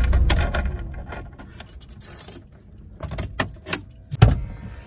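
A low rumble dies away within the first second, and then car keys jangle and click. A single sharp thump comes a little after four seconds.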